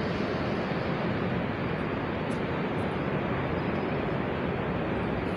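Countertop electric blender running steadily, blending a thick pancake batter of oats and banana.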